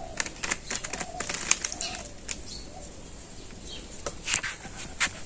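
Freshly caught live puti fish flapping in a container: an uneven scatter of short, sharp wet clicks and slaps.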